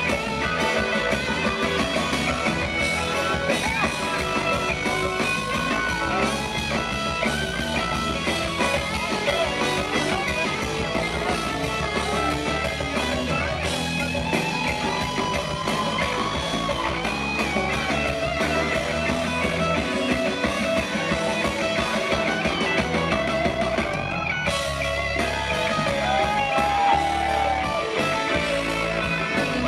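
A live rock band playing, with an electric guitar carrying the lead in gliding, bent notes over the full band.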